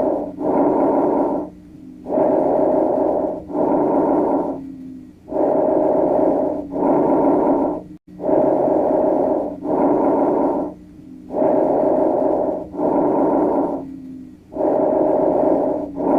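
Recorded breath sounds: a steady cycle of a breath in and a breath out, each about a second long with a short pause between them, repeating about every three seconds. The recording breaks off for an instant about halfway through and carries on in the same rhythm.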